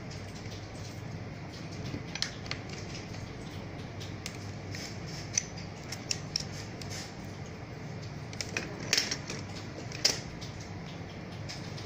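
Small plastic clicks and handling noises as a USB charging cable is plugged into a clip-on LED ring light power bank and then into a smartphone, with the sharpest clicks about nine and ten seconds in, over a steady low hum.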